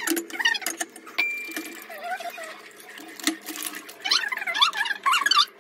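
A metal teaspoon clinking and scraping against ceramic tea cups as tea is stirred, in quick uneven taps, with one clink ringing on briefly about a second in. A high wavering sound joins the clinks in the last second and a half.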